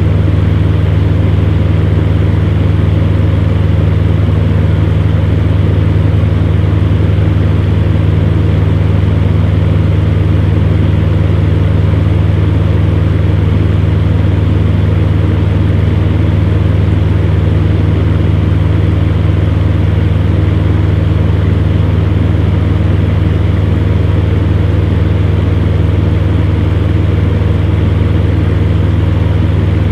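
Electric fan running at a steady speed: a loud, even low hum with a steady airy rush above it.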